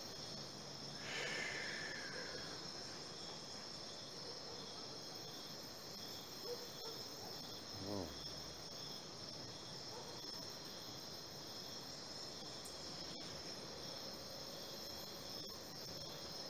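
Steady trilling of insects, with a brief falling-pitch sound about a second in.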